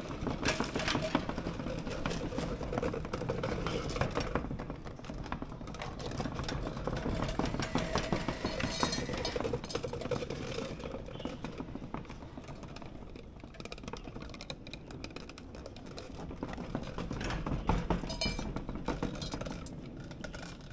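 Dry dog treats rattling and clattering as they are poured from a plastic tub into a plastic funnel and clear PVC pipe, a steady patter of many small hard pieces.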